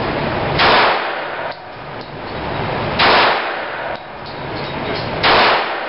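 Three pistol shots fired at a steady pace, about two and a half seconds apart, each a sharp crack with a short echo.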